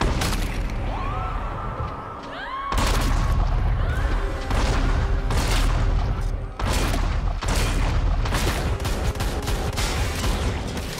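A volley of shotgun blasts, heavy and booming, one near the start and then a string of about eight shots roughly a second apart from about three seconds in, with a film score underneath.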